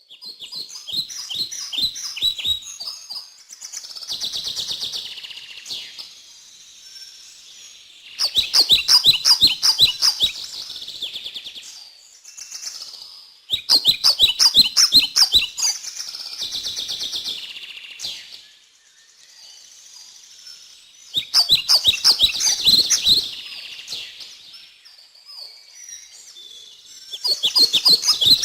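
A songbird sings a repeated song: bursts of rapid, high chirping notes, each run straight into a buzzy trill, recurring about every six to seven seconds, with quieter stretches between phrases.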